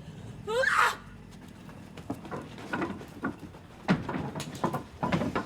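A short, loud rising cry, then a string of scattered knocks and thumps, bunched again near the end.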